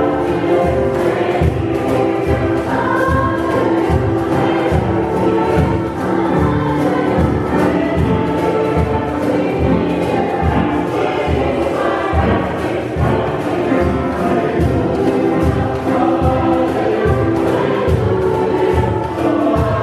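Mixed choir singing a song together with piano accompaniment, with a hand drum, a djembe, keeping a steady beat underneath.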